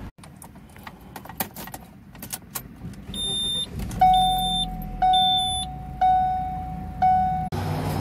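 Car keys jangling and clicking, then a car's dashboard warning chime dinging about once a second, four times, each ding fading out.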